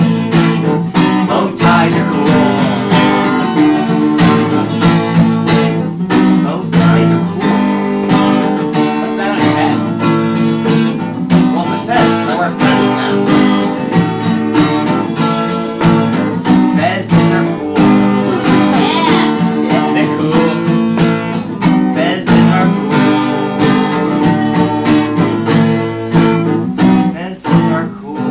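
Acoustic guitar strummed in a steady rhythm, playing a quick, upbeat song live.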